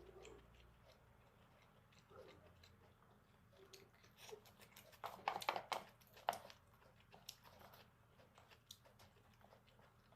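Close-up eating sounds of someone chewing jjajangmyeon noodles with octopus: scattered soft mouth clicks, with a louder run of wet chewing and biting sounds about five to six seconds in.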